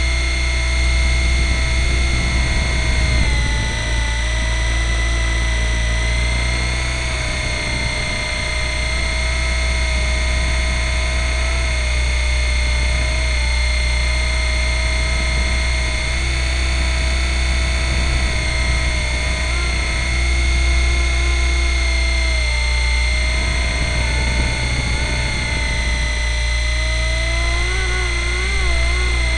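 Nine Eagles Kestrel 500SX RC helicopter in flight, heard from its own onboard camera: a steady high whine from the motor and gears over a heavy low rotor rumble. The pitch dips a little early on and rises again near the end as the throttle changes.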